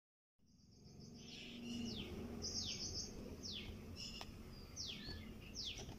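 Faint birdsong: short rapid high trills and a series of sharp downward-sweeping whistled notes, about one a second.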